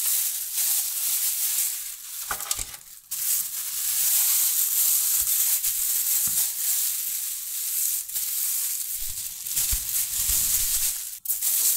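Chicken kottu (chopped roti with chicken) being tipped and scooped from its takeaway pack onto a plate: a continuous rustling, scraping hiss with a few sharp clicks and some soft knocks of a spoon and dish.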